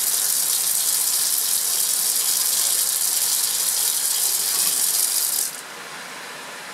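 Vacuum filtration: liquid and air drawn down through a fritted glass filter funnel under suction, a steady rattling hiss that cuts off suddenly about five and a half seconds in.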